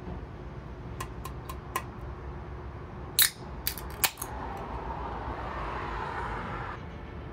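A tall can of lager opened by its ring-pull: a few light clicks at the tab, a sharp crack about three seconds in as the seal breaks, then a fizzing hiss of escaping gas for about two seconds.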